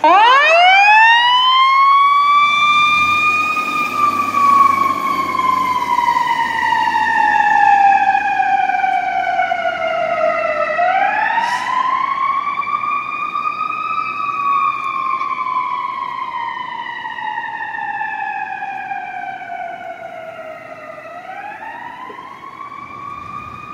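Toronto Fire pumper's siren wailing as it responds: it winds up quickly, falls slowly, then rises and falls again twice in a long, slow cycle. It grows fainter as the truck drives away.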